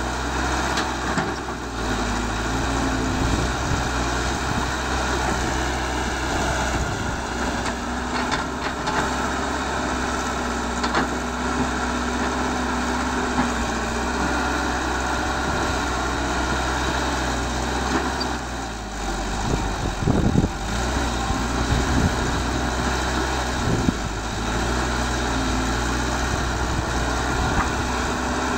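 CAT 312 excavator's diesel engine running steadily as it works, its note shifting briefly about a quarter of the way in. A short cluster of knocks, the loudest sound, comes about two-thirds of the way through.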